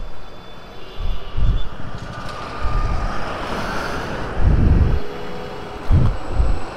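Motorcycle running on the road, heard from the moving bike, with a steady rush of road and wind noise and irregular low thumps on the microphone.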